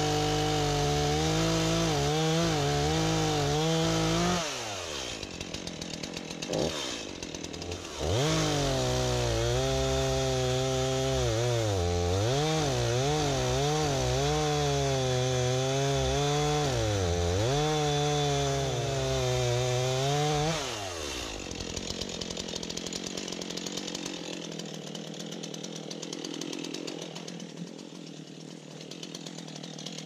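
STIHL MS251 two-stroke chainsaw cutting into a maple trunk at full throttle, its pitch dipping each time the chain bites into the wood. It drops back to idle for a few seconds, revs up and cuts again, then falls away about twenty seconds in.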